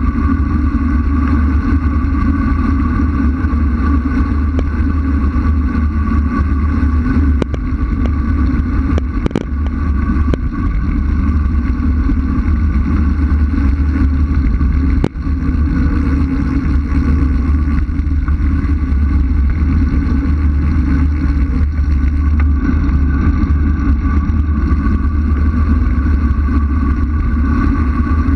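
Wind rushing over an action camera's microphone on a road bike descending at speed: a loud, steady low rumble with a faint whine above it, broken by a couple of brief knocks, one about nine seconds in and another around the middle.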